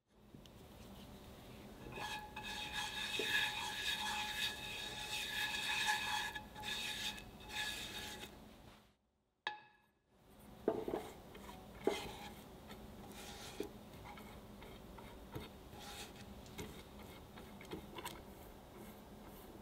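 Butter sizzling as it melts in a nonstick frying pan, a crackling hiss with a faint steady whine. After a break, a steel ring mold is set down in the pan with a couple of metallic clicks, then a silicone pastry brush rubs butter along the inside of the ring with light taps.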